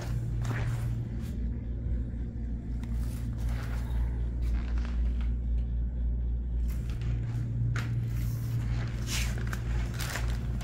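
A steady low hum, with scattered scuffs and rustles on top.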